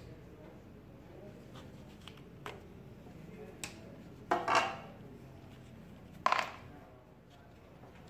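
Small sharp clicks from a wire stripper working on electrical cable ends, then two louder clattering knocks about four and a half and six and a half seconds in, over a low steady hum.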